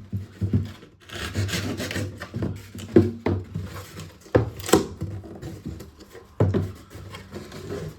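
Double-wall corrugated cardboard being sawn through with a serrated knife: rough rasping strokes, with a few sharper knocks and crackles of the board around the middle and again near the end.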